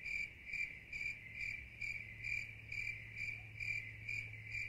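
Steady rhythmic chirping, about two chirps a second, each a soft pitched note, over a low steady hum.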